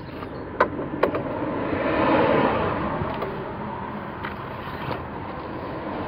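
Traffic on a busy main road: a passing vehicle's road noise swells to its loudest about two seconds in and then fades. Two short, sharp clicks come near the start.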